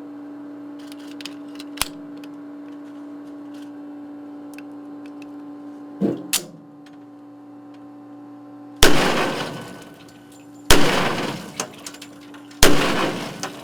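Three gunshots from a firearm fired into a ballistics water tank, about two seconds apart, each ringing out for about a second in the enclosed room. A few short clicks come before the first shot.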